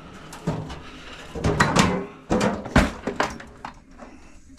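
A microwave's sheet-metal outer casing being handled and lifted off: a string of separate knocks and clanks over a few seconds, with a quieter stretch near the end.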